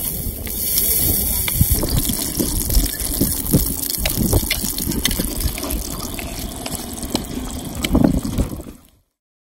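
Shea butter sizzling on a fire-heated flat stone slab while a wooden spatula spreads it, scraping and tapping on the rock in short clicks. The sound fades out to silence near the end.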